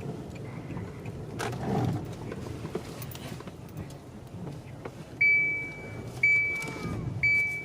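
Low steady rumble of a car with a running engine. From about five seconds in, a loud high electronic beep repeats roughly once a second.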